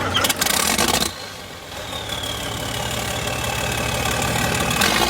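Loud clattering for about the first second, then an engine running steadily with a regular knocking pulse, slowly getting louder.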